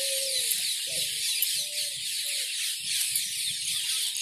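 Outdoor background of bird calls: short calls repeating about twice a second over a steady high hiss of chirping.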